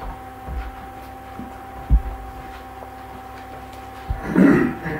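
Handling noise over a steady electrical hum: a few soft low thumps, then a brief, louder rustle about four seconds in.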